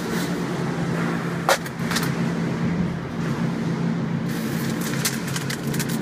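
Steady hum of a running peanut color-sorting machine, with a few sharp clicks. From about two-thirds of the way in, the clicks come thicker as shelled peanuts are scooped by hand from a metal tray.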